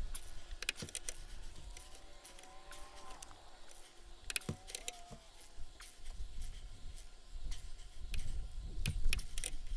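Ratchet and click-type torque wrench working the nuts on leaf-spring U-bolts: scattered sharp metallic clicks in short runs as the nuts are snugged down and brought up to torque.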